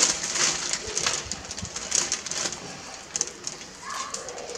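Kitchen knife cutting between the bones of a rack of raw pork ribs on a wooden board: a run of short scraping strokes, with a dove cooing faintly in the background.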